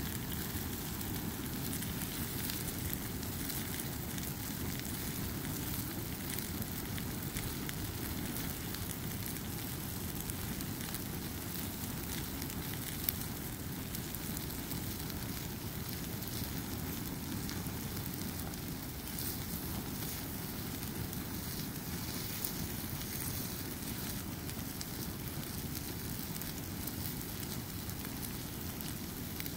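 Open fire burning a pile of nylon snow pants, coats and jackets, rushing and crackling steadily, with one sharp pop about halfway through.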